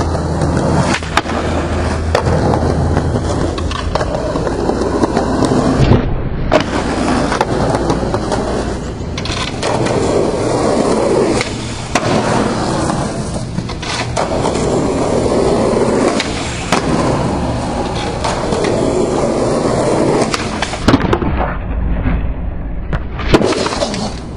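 Skateboard rolling on rough asphalt: a steady rumble of the wheels, broken now and then by sharp clacks of the board popping and landing. Near the end comes a loud clack and clatter as the skater bails and the board gets away from him.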